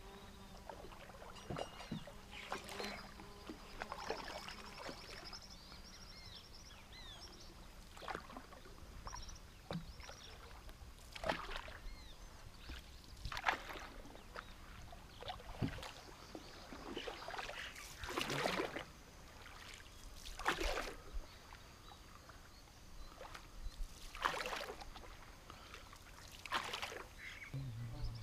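Canoe paddles dipping and pulling through calm water, a short splash with each stroke every two to three seconds.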